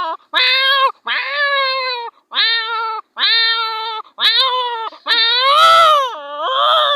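A man's voice imitating a tomcat's mating yowls: about seven drawn-out meows in quick succession, growing louder, the last ones longer and swooping up and down in pitch.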